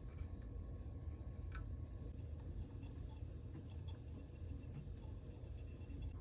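Cotton swab scrubbing around an output transistor's mount on the heatsink: faint scratchy rubbing with a few small clicks, over a steady low hum.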